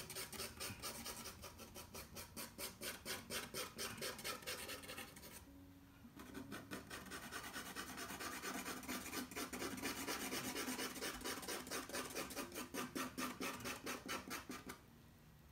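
Coloured pencil being stroked rapidly back and forth on toned paper, several strokes a second, shading in an area of colour. The strokes pause briefly about five and a half seconds in, then go on until just before the end.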